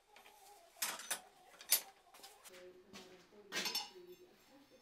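Light metallic clinks and a short clatter of forged iron pieces and blacksmith's tongs knocking against a steel anvil as they are handled and set down, the sharpest clink a little under two seconds in and a longer clatter near the end.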